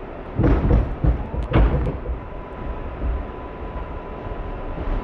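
A cluster of heavy thumps and knocks in the first two seconds over the steady noise of an R188 subway train standing at the platform with its doors open, then a faint steady high tone that holds to the end.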